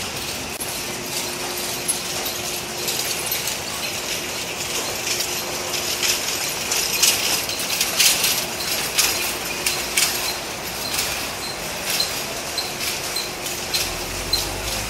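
Horse-drawn carriage passing close: hooves clopping on the road with the carriage and harness rattling and clicking, loudest about halfway through.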